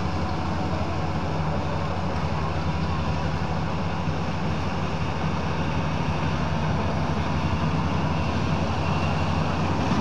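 Kubota DC-35 rice combine harvester's diesel engine running steadily while the machine cuts and threshes standing rice.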